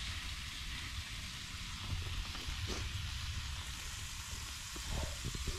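Bacon and sausages sizzling in a frying pan on a portable gas camping stove: a steady hiss with a low rumble underneath, and a few light taps near the end.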